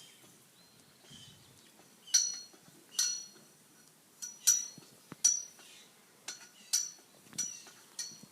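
Highland cattle scratching their necks against something that rings, giving about nine irregular, sharp clinks that ring briefly.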